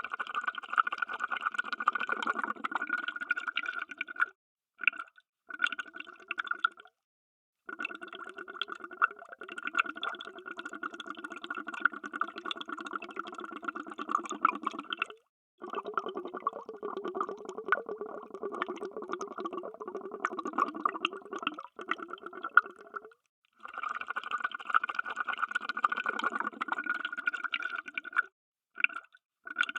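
Underwater bubbles: a dense, steady stream of bubbling and gurgling. It comes in stretches of a few seconds up to about eight, cut by short, complete silences between them.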